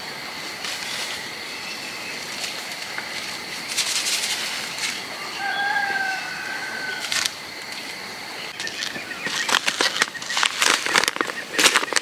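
A short, drawn-out bird call about halfway through, then a run of quick rustling and crackling over the last third, with a steady faint hiss throughout.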